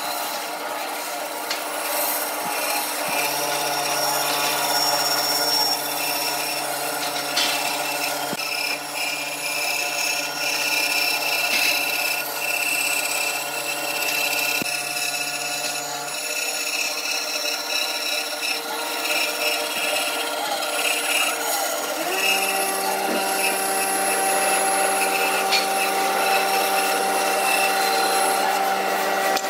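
Band saw running and cutting through a thick wooden beam along a curve, a steady machine hum under the rasp of the blade in the wood.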